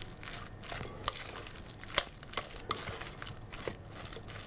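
A spoon stirring and folding a thick brandade of crushed potato and cod in a glass bowl: a soft, steady mixing noise with irregular clicks of the spoon against the glass. The sharpest click comes about two seconds in.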